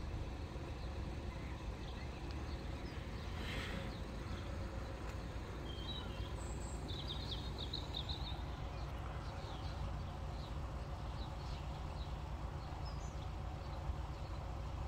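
Steady low outdoor background rumble, with a few short bird chirps about six to seven seconds in.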